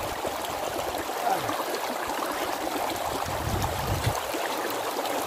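Small hillside stream running steadily in a narrow grassy channel, close by, where hands are scooping water to drink. A brief low rumble comes about three and a half seconds in.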